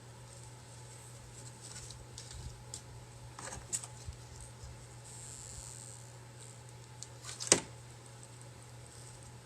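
Quiet crafting handling sounds as fabric edges are glued together with a glue gun: faint rustling, a small click a little over a third of the way in and a sharper click about three quarters of the way through, over a steady low hum.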